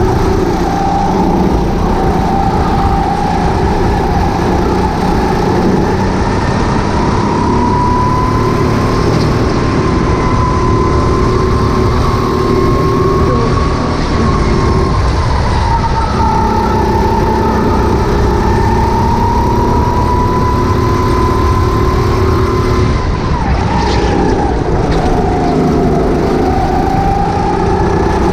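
Rental go-kart engine heard onboard, running hard around the track, its pitch rising and falling with the throttle through the corners. It drops clearly about halfway through and again near the end, then climbs back.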